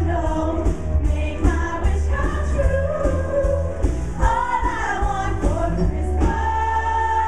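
A song with singing over a band and a steady beat; near the end a long note is held.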